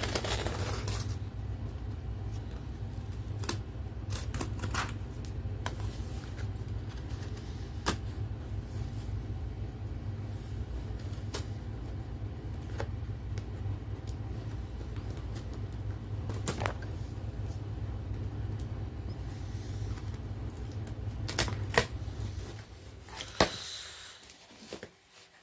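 A package being opened by hand: scattered clicks, taps and scrapes of handling. Under them is a steady low hum that stops near the end.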